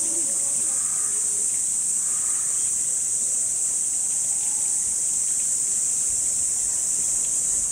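A summer cicada chorus: a steady, high-pitched drone that never lets up.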